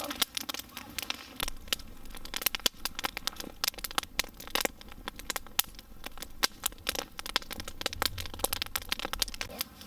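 Open wood campfire crackling, with many irregular sharp pops and snaps.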